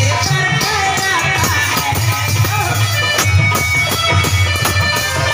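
Live Indian stage-band music: drums keep a steady beat under a melody instrument playing long held notes with bends in pitch.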